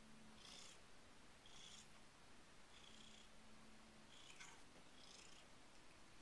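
Faint, regular purring of a domestic cat, going in a soft cycle about once a second.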